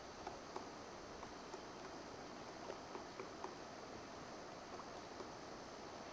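Pileated woodpecker pecking at a tree trunk: faint, irregular light knocks at uneven spacing over a steady hiss.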